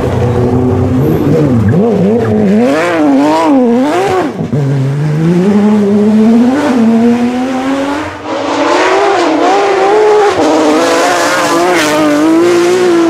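Porsche 911 GT3 rally car's flat-six engine at full throttle, revs climbing and wavering, then dropping sharply about four seconds in before climbing again.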